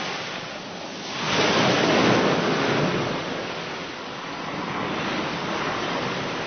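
Ocean surf: a steady wash of waves, with one wave surging in about a second in and easing off over the next two seconds.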